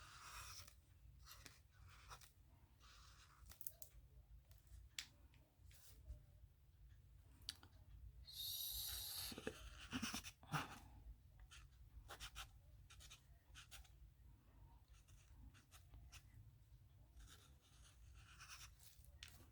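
Faint scratching of a pen writing on paper, with scattered light ticks and one longer, louder stroke about eight seconds in.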